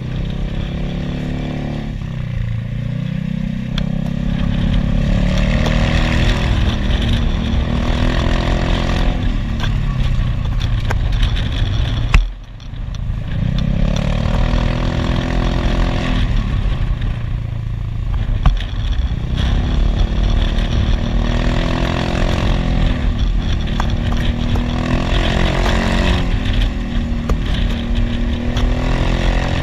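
Motorcycle engine heard from the rider's seat, its pitch rising over and over as it accelerates and easing off between. There is a sharp click about twelve seconds in, with a brief drop in the sound, and another click a few seconds later.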